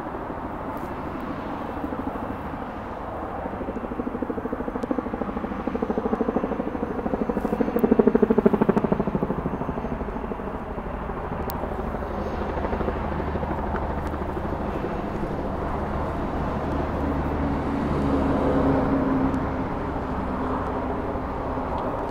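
Helicopter passing overhead: a steady, rapid rotor beat over a low drone. It grows to its loudest about eight seconds in, eases off, then swells again briefly near the end.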